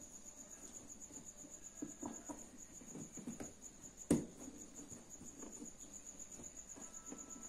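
Crickets chirping steadily with a fast, even, high-pitched pulse. Over it come light rustling and handling of a carpet sheet being fitted with wire clamps, with one sharp click about four seconds in.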